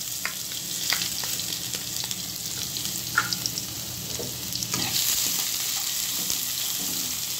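Chopped onion sizzling in hot oil in a kadhai, stirred with a spatula that clicks and scrapes against the pan. The sizzle grows louder about five seconds in.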